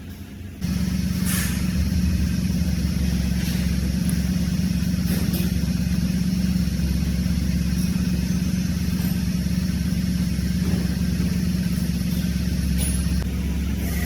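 Mercedes-AMG E63's M177 4.0-litre twin-turbo V8 running at a steady idle, coming in abruptly about half a second in, with a few faint clicks over the drone.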